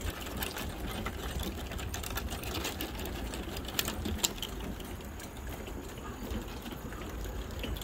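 Irregular light clicks and taps of footsteps and dog paws on wooden dock boards, over a steady low rumble.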